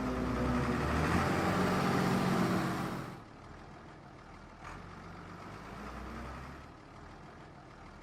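Car engine running while driving: loud for about three seconds, then dropping suddenly to a quieter, steady low rumble.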